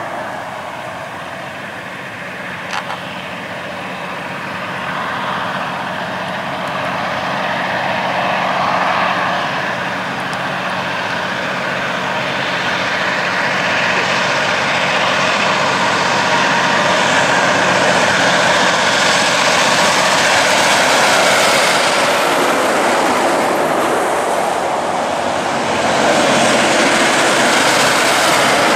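Heavy Kenworth K200 road trains hauling an oversize load approach along the highway and pass, their engine and tyre noise building slowly and growing loudest near the end as the lead truck comes past. There is a brief click about three seconds in.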